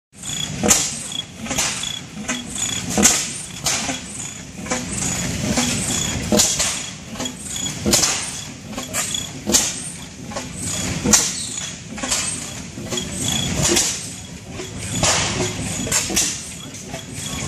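Large antique horizontal single-cylinder stationary gas engine with twin flywheels running slowly. It fires with a sharp bang about every second and a half, with lighter clicks and knocks in between over a low rumble.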